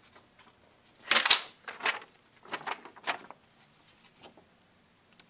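Four short rustling scuffs over about two seconds, starting about a second in. The first is the loudest.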